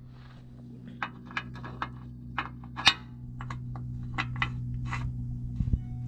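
Sharp metallic clicks and clinks as a quarter-inch steel plate with welded nuts is worked by hand into a hole in a pickup truck's frame cross member. They come in a quick irregular series, over a steady low hum.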